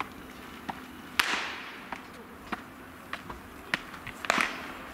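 A pitched baseball smacking into a catcher's mitt with a sharp, echoing pop about a second in. A second loud catch near the end as the ball comes back to the pitcher's glove, with fainter snaps of other throws being caught.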